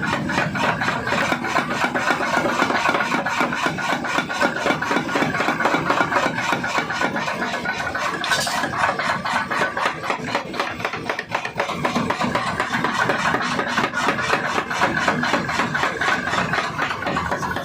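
Mechanical forging power hammer running continuously, its ram striking in a rapid, even rhythm of several blows a second.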